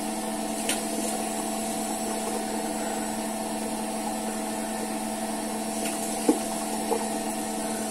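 Water running steadily from a tap, with a low hum under it and a few faint splashes as a face is rinsed at the sink.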